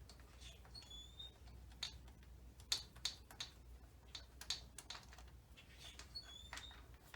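Faint, scattered clicks and light taps of hand tools and small metal engine parts being handled during a cam tensioner removal, irregular rather than rhythmic.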